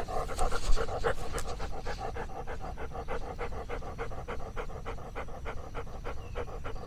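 Old dog panting rapidly and evenly, heard up close from a camera harnessed to its back.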